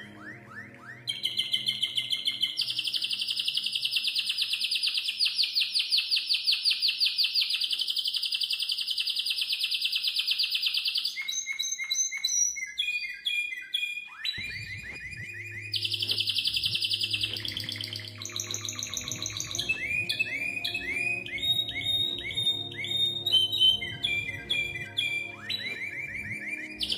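Domestic canary singing: long, fast rolling trills of rapidly repeated high notes, broken by changing series of quick chirps and short rising notes.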